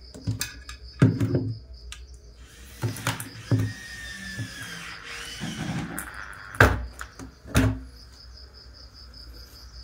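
Handling noise of plugging a power adapter and cables into an audio mixer: scattered clicks and knocks, with two sharper knocks about two-thirds of the way through.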